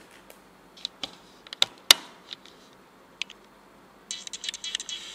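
Handling noise from a handheld GPS unit and its plastic packaging on a table: a few sharp separate clicks and taps, the loudest just under two seconds in, then a dense crackling rustle about four seconds in that lasts over a second.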